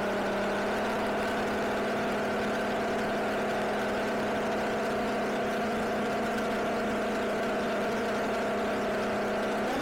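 An engine running at a constant speed: a steady hum at one pitch with overtones, no change in revs.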